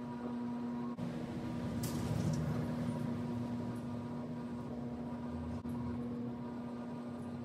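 A steady mechanical hum of unchanging pitch over a background hiss, with a brief high rustle about two seconds in.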